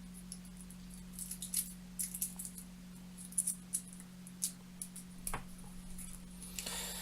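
Small clicks and rustles of a stripped multi-core cable and its separately shielded wires being handled and sorted, with a sharper tick about five seconds in, over a steady low hum.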